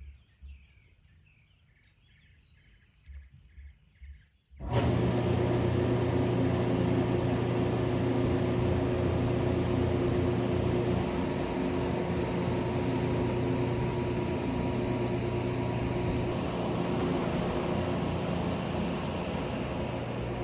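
A faint, steady, high insect trill. After about four and a half seconds it cuts abruptly to a loud, steady machine running, with a low drone and a thin high whine over a noisy hum.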